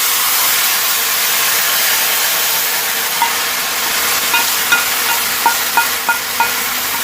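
Hot tadka oil with mustard seeds, dry red chillies and curry leaves sizzling loudly as it is poured into the kadhi, a steady hiss that eases slightly, with a few light metallic clinks in the second half.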